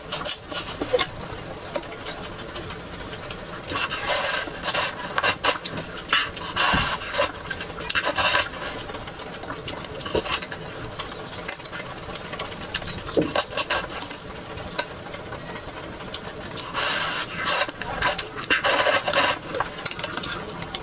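Close-miked mukbang eating sounds: several bursts of crunching and rustling, with small clicks and taps in between.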